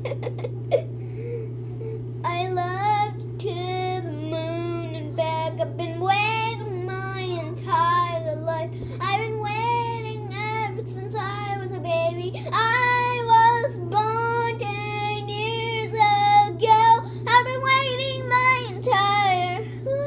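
A young girl singing a melody into a running electric fan. Her held notes wobble, and the fan's steady hum runs underneath. The singing starts about two seconds in.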